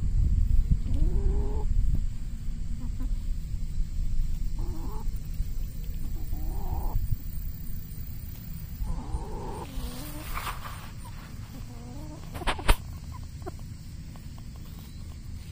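Chickens giving soft drawn-out calls that bend in pitch, one every couple of seconds, over a low rumble on the microphone in the first few seconds. A single sharp tap sounds close to the microphone near the end.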